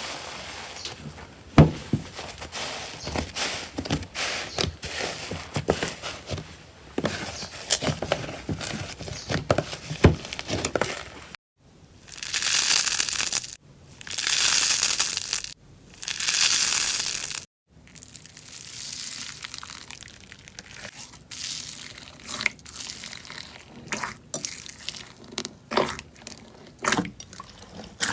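Slime being squeezed and worked by hand, with dense crackling and crunching. Partway through there are three long hissing swishes, then sparser crackles and pops.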